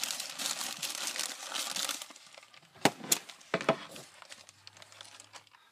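Rustling and crinkling of soft doll stuffing being pulled and handled close to the microphone, dense for about two seconds, then a few sharp taps near the middle and fainter rustling.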